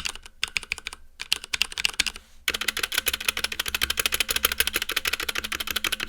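Fast, steady typing on a Tada68 mechanical keyboard with Cherry MX Red linear switches, many keystrokes a second. It breaks off briefly about two seconds in, then resumes.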